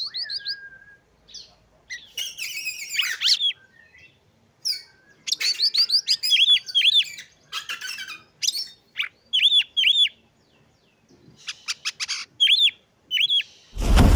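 Oriental magpie-robin singing in short, varied phrases of clear whistles, rising-and-falling notes and quick trills, with brief pauses between phrases. Just before the end a loud rushing noise cuts in over it.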